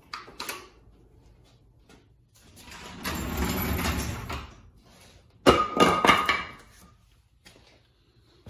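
Scraping and shuffling, then a sharp metallic clank a little past halfway that rings briefly.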